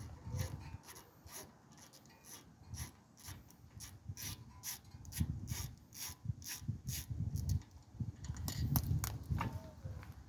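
Sharp metallic clicks and clinks, about two or three a second and uneven, with duller knocks in between: hand tools and brake parts being handled while a car's front brake caliper is taken apart.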